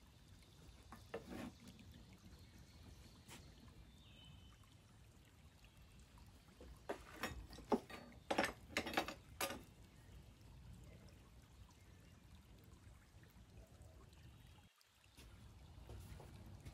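Light taps and clicks of a casting pattern being rapped loose and lifted out of a Petrobond oil-bonded sand mould, with a quick cluster of sharper knocks about seven to nine and a half seconds in, over a faint low background hiss.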